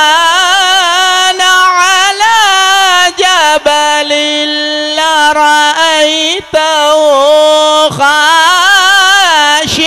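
A male qari's voice in melodic Qur'an recitation (tilawat), holding long ornamented notes that waver and bend in pitch, amplified through a microphone and sound system. The held phrases are broken by a few short breaths.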